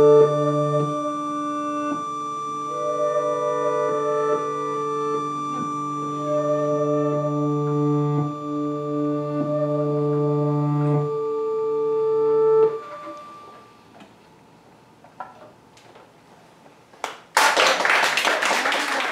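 Accordion holding a sustained chord, with other long held notes layered over it, which fades out about two-thirds of the way through. After a few seconds of near-quiet with small clicks, audience applause breaks out near the end.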